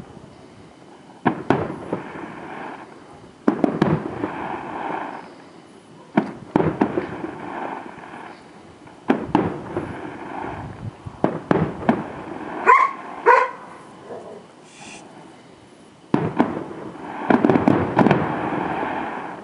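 Distant aerial fireworks shells bursting, a sharp bang every two to three seconds, each followed by a long rolling echo. A dog barks twice about two-thirds of the way through.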